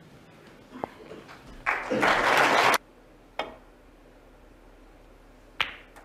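Snooker audience applauding for about a second, the applause cutting off abruptly, with a few sharp clicks of snooker balls knocking before and after it.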